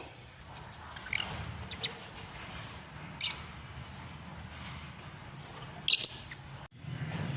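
Lovebirds giving short, sharp squawks and chirps, a few scattered calls with the loudest pair about six seconds in. A steady low hum comes in near the end.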